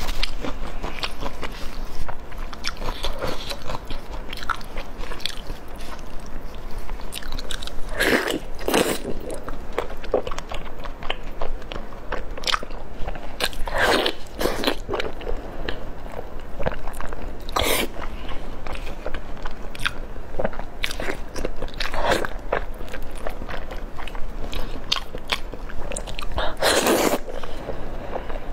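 Close-miked eating of sticky, sauce-glazed braised beef tendon: a steady run of short, wet chewing and mouth clicks. About half a dozen louder, longer bites are spread unevenly through it.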